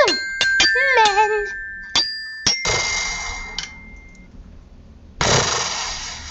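Cartoon sound effects: a quick falling whistle-like glide, then a run of sharp dings with ringing tones and short warbling squeaks, followed by two bursts of hissing noise.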